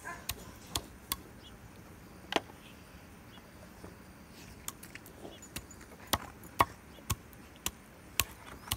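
Heavy chopper chopping partly frozen raw chicken legs and thighs on a wooden board, breaking the bones: sharp single chops, a few in the first couple of seconds, a pause, then a run of chops about every half second through the second half.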